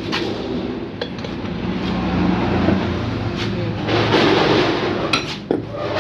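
An engine running steadily, swelling in level twice, with a few sharp metallic clicks over it.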